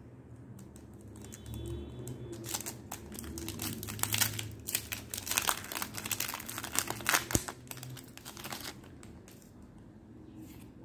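A Pokémon Trading Card Game booster pack's foil wrapper being torn open and crinkled by hand: a run of crackling that starts about two seconds in, is loudest in the middle and dies away near the end.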